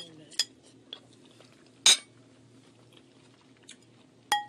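Cutlery clinking against a plate: a few sharp clicks, the loudest about two seconds in, and one near the end that rings briefly.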